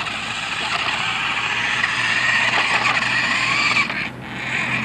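Small electric motor of a toy remote-control car whirring, with its wheels running over pavement; the sound builds slowly and briefly dips about four seconds in.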